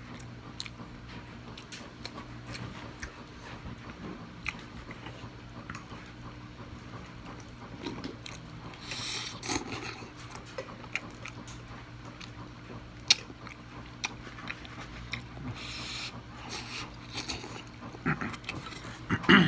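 Instant ramen noodles being slurped and chewed, with small clicks of chopsticks and mouth noises. There are hissy slurps about nine seconds in and again around sixteen seconds, and the loudest slurp comes near the end. A steady low hum runs underneath.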